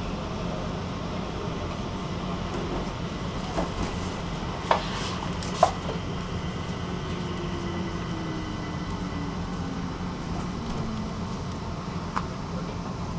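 Stockholm metro train running, heard from inside the carriage as a steady rumble and hum. Two sharp clacks come about five seconds in, and a faint whine slowly falls in pitch midway.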